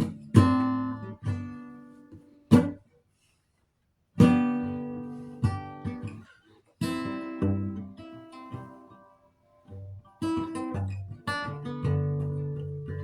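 Acoustic guitar strummed slowly: single chords struck and left to ring and fade, with short silent pauses between some of them, and a longer held chord near the end.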